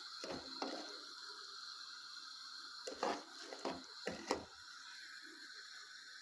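A fork knocking and scraping in a small saucepan of melting sugar: a few scattered clicks, the loudest a little after three and four seconds in.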